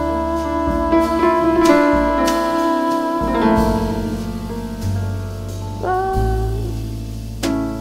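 Small jazz band playing live: a woman singing over piano, electric bass and a drum kit, with occasional cymbal strokes.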